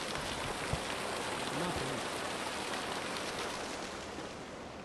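Drain water gushing out of an outfall pipe and splashing onto the stony river foreshore: a steady hiss of falling, splashing water that fades over the last second or so.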